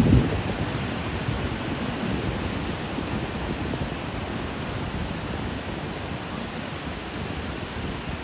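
Ocean waves: a breaking wave dies away right at the start, then a steady wash of surf.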